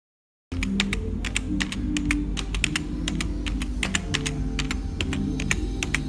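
Intro jingle: a short tune with rapid, irregular computer-keyboard typing clicks laid over it, starting abruptly about half a second in.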